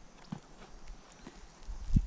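Footsteps on loose, freshly disced soil: a few light scattered taps, then a sharper thump near the end.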